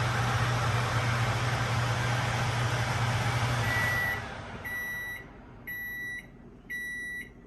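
GE JVM3162DJ1BB over-the-range microwave oven running empty, with a loud fan and a low hum. The run stops about four seconds in, and the oven then gives four beeps about a second apart, signalling the end of the cooking cycle.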